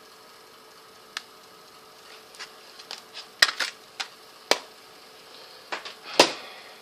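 Makeup palette case being handled and opened: a string of short clicks and clacks as its layered trays and lid are moved, the loudest one near the end.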